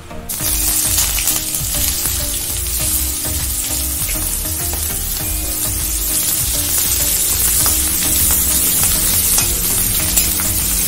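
Chopped onions hitting hot oil in an iron kadai and sizzling. The hiss starts abruptly as they go in, then stays steady while a spatula stirs them, with short scraping clicks against the pan.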